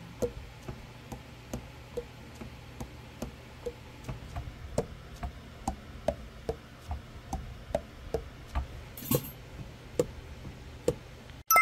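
Pads of a Selmer Mark VI alto saxophone closing onto their tone holes as the keys are pressed very gently, one after another: soft, sealed-sounding pad clicks about two a second, with one sharper click about nine seconds in. The sealed sound is the sign of pads seating airtight in a leak test.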